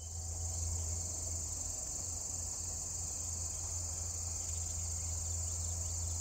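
A steady, high-pitched chorus of insects trilling, like crickets in a summer pasture, with a steady low rumble underneath.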